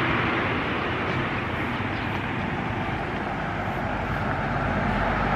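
Steady rush of wind and road noise from a moving vehicle, easing a little and then swelling again near the end.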